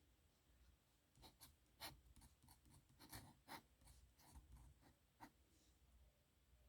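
Steel nib of a dip pen scratching across paper in short strokes, faint, with a run of quick scratches and ticks from about a second in that thins out near the end.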